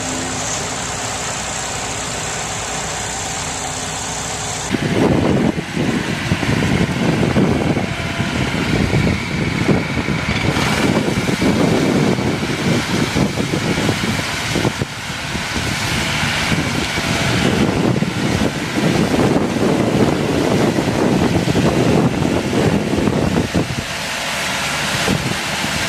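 Tractor engine running steadily with a high whine over it, then much louder and rougher from about five seconds in, when the whine stops.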